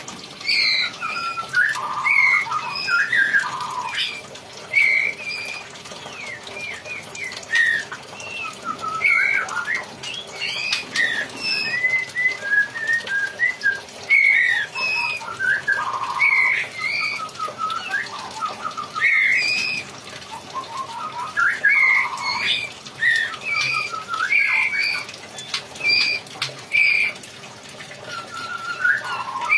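A songbird singing a long, varied song: a rapid run of short chirps, whistled notes and quick trills, with hardly a pause.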